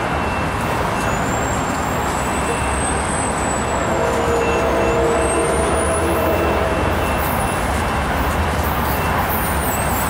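Amtrak F59PHI diesel locomotive's horn sounding a chord about four seconds in and holding it for a few seconds. It is heard from a distance as the train approaches, over a steady low rumble of traffic and engines.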